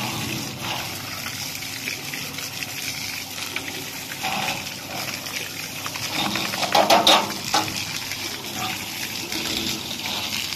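Water gushing from a hose, spraying onto a dog and splashing on the ground, with a louder burst about seven seconds in.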